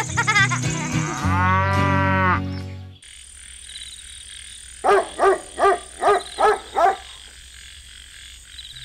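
A cartoon-style laughing sound effect, then a cow mooing once for about a second. After that comes a quiet night-time background in which a frog croaks six times in quick succession.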